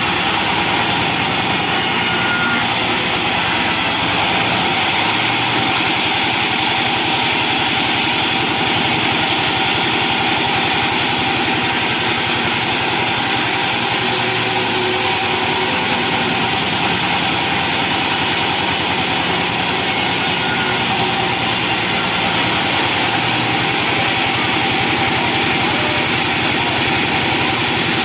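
Band sawmill's engine running steadily at a constant speed.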